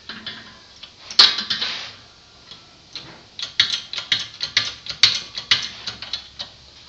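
Ratchet wrench clicking in quick runs of about four or five clicks a second while it is worked on a socket on the water pump shaft in the press. About a second in there is one sharp snap with a short rasp.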